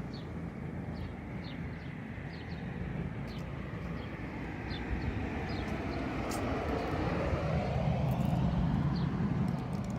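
A motor vehicle passing by: a steady rushing noise that builds slowly to its loudest near the end, then begins to fade.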